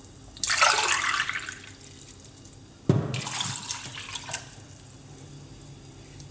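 Water poured from a glass into a saucepan of dates, in two pours, the second starting with a sharp splash.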